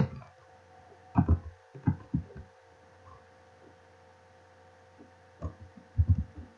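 Keystrokes on a computer keyboard, heard as short dull thumps in a few quick clusters with a pause of a few seconds between them, over a faint steady electrical hum.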